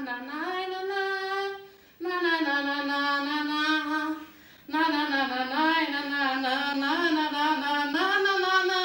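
A woman singing a tune alone, without accompaniment, in three held phrases with wavering pitch, broken by short pauses about two and four and a half seconds in.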